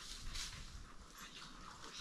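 Faint sounds of a hunting dog holding a wild boar at bay a short way off: a few short barks and scuffles.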